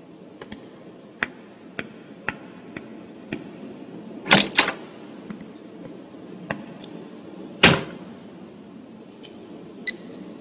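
High-heeled footsteps clicking on a hard floor, about two steps a second, then a glass-panelled door being opened and shut. The loudest knock comes about three quarters of the way through.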